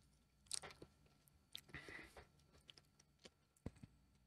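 Near silence with a few faint, scattered clicks and soft mouth noises of someone chewing.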